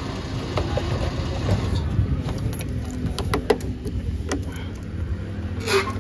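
A motor vehicle engine idling steadily. From about two seconds in, a scatter of sharp clicks and knocks sounds over it.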